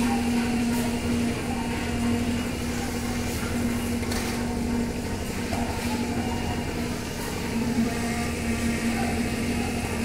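A motor-driven machine running steadily at constant speed, giving an even hum with a low rumble, with a few faint knocks from concrete work over it.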